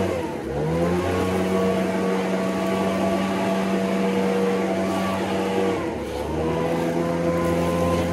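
Leaf blower running steadily at high speed. Its pitch briefly drops and climbs back up about half a second in and again about six seconds in.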